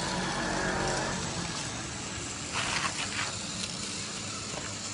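Scale RC truck chassis driving over dirt, its small electric drive running with a steady hum. A few short crunches and knocks come from the wheels on rough ground about two and a half to three and a half seconds in.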